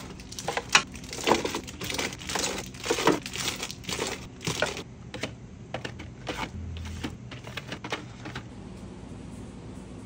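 Wrapped candies crinkling and clattering as they are handled and dropped into clear plastic fridge bins, the cellophane wrappers rustling. The crinkling is dense for about the first half, then thins to scattered taps and stops near the end.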